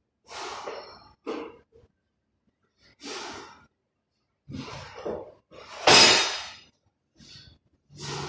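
Workshop handling noise from a mechanic moving about beside an engine stand and reaching into a cardboard box: a run of short, noisy scuffs and rustles. The loudest comes about six seconds in.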